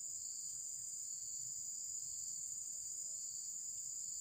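A steady, high-pitched chorus of insects, an unbroken drone with no pauses.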